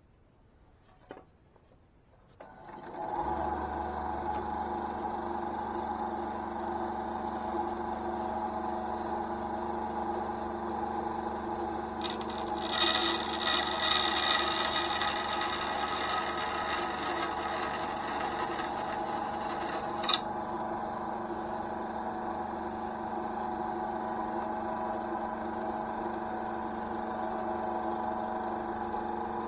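Einhell TC-SB 200/1 bandsaw switched on about three seconds in and running steadily. From about 12 to 20 seconds the blade cuts through a thin wooden board, making the sound louder and hissier, and a short click comes as the cut ends. After that the saw runs free again.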